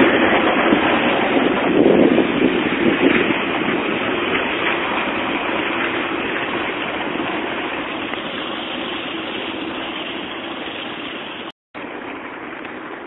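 Tram running away along street track, its rumble fading steadily as it moves off. The sound cuts out for a split second near the end.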